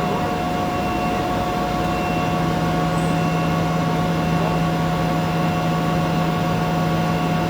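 Machine tool running, a steady hum with a few constant tones.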